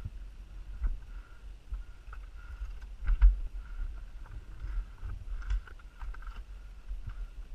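Uneven low rumble and thuds of movement and wind on the camera microphone as a climber scrambles over loose rock, with a few sharp clicks against stone.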